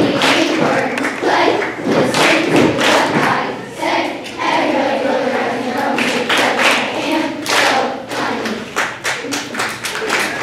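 A children's choir singing, with repeated thumps through the singing that come thickest near the end.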